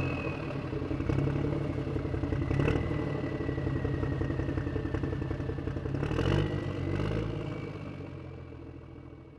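A vehicle engine running, swelling louder briefly about three and six seconds in, then fading steadily away as the vehicle drives off into the distance.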